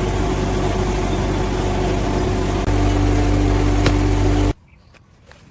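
Factory machinery running with a loud, steady hum. The hum steps lower and louder about two and a half seconds in, then cuts off abruptly near the end, leaving only faint clicks.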